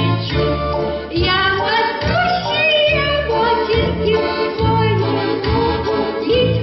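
Folk ensemble song: voices sing a wavering melody over instrumental accompaniment with a steady beat in the bass.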